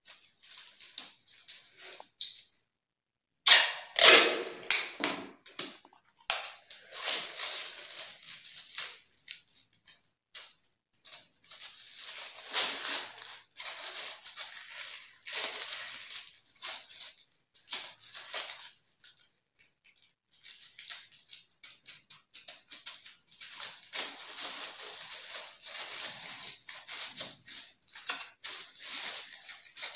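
A thin paper kite crinkling and rustling as it is handled and mended, in irregular bursts of sharp crackles, loudest about four seconds in, with short pauses between bursts.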